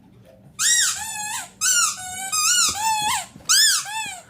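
Rubber squeaky dog toy squeezed repeatedly, giving about four runs of loud, high-pitched squeaks that rise and fall in pitch.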